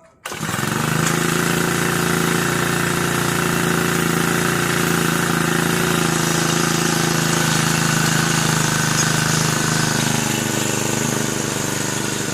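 Aspee Turbotech CHD T35 4S four-stroke brush cutter engine running steadily on its new ignition coil. It cuts in suddenly just after the start and eases slightly near the end.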